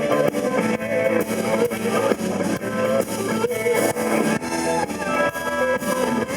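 Blues-rock band playing an instrumental passage: guitar lines over a steady drum beat, with no singing.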